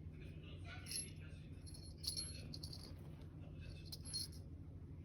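Light metallic jingling in three short bursts, about one, two and four seconds in, over a steady low hum.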